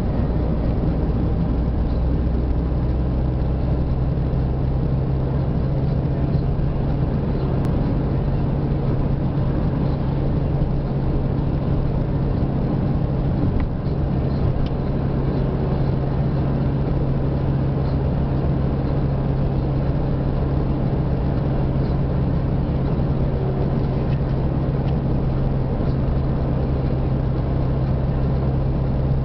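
Car cruising at a steady speed, heard from inside the cabin: a steady low engine hum with even tyre noise on the asphalt.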